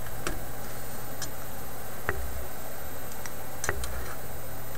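About six short, sharp clicks and ticks at uneven intervals, the loudest a little after two seconds and near the end, from small hand tools working among the wiring and metal chassis of a vacuum tube radio, over a steady low hum.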